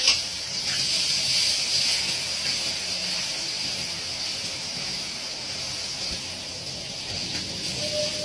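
Steady hiss of food cooking in the hot wok of an automatic stir-fry machine, with a short knock at the start and a steady tone coming in near the end.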